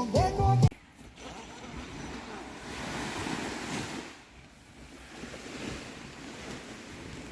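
Music breaks off under a second in. Then sea waves wash on the shore, swelling twice and falling back, with some wind.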